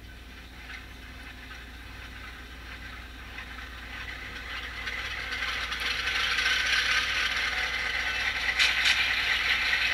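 Soundtraxx Tsunami sound decoder in an HO-scale GP9 model playing the EMD 567 diesel startup sequence through the locomotive's small onboard speaker. The engine sound builds steadily in loudness over several seconds and then settles into a steady run, with a brief click near the end.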